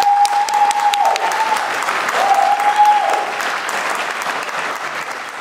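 An audience applauding after a live performance, the clapping fading out near the end. Twice, someone in the crowd lets out a long, steady high call over the clapping.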